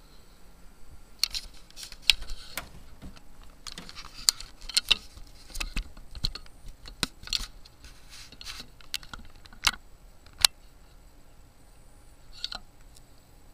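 Irregular sharp clicks and rattles of something being handled, in clusters over most of the stretch, then stopping about 10 seconds in, over a faint steady high-pitched tone.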